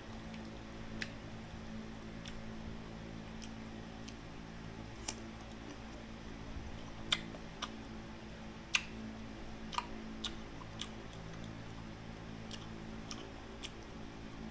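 Scattered small, sharp clicks and crunches from eating crisp unripe green mango slices, about a dozen spread irregularly, over a steady low hum.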